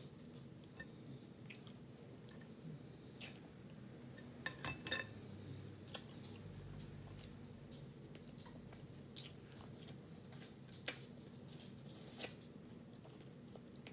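Quiet close-up chewing, with a handful of short mouth clicks and smacks scattered through it.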